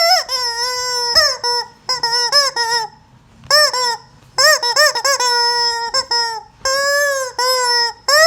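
Rubber squeaky chicken toy being squeezed, letting out a string of nasal squawks: a few long drawn-out ones, each rising and falling in pitch, and runs of short quick squeaks, with brief pauses between groups.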